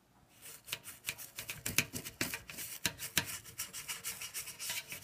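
Toothbrush bristles scrubbing the soapy metal drain flange of a food waste disposer in quick back-and-forth strokes, several a second, to loosen built-up dirt.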